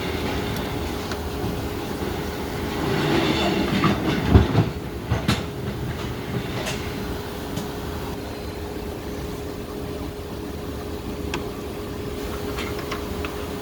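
Steady fan-like machine hum with a constant low tone. Over it come clatter and knocks from small hardware being handled, loudest about four seconds in, then a few sharp clicks.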